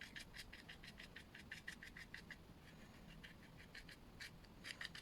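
Paintbrush on paper making quick, short scratchy strokes, about three or four a second, faint, with a short pause about halfway through: blades of grass being flicked on in different directions.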